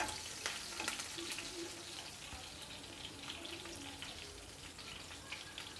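Green chillies and cumin seeds frying in a little hot oil in a non-stick kadhai: a soft, steady sizzle with scattered small crackles.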